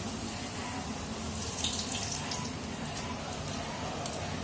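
Puri deep-frying in hot oil in a kadhai: a steady sizzle, with a few brief sharper crackles about one and a half to two seconds in.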